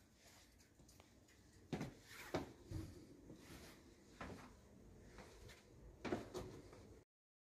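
Faint footsteps going down stone stairs, a step roughly every second, with the sound cutting off abruptly near the end.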